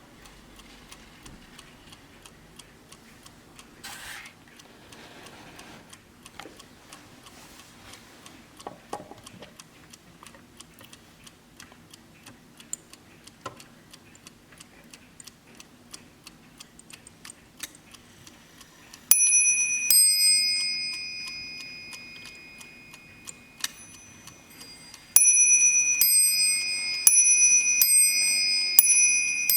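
Warmink mantel clock ticking steadily. About two-thirds of the way in it strikes one bell note that rings out and fades. A few seconds later it strikes a quick run of notes alternating between its two bells, which are slightly different in pitch.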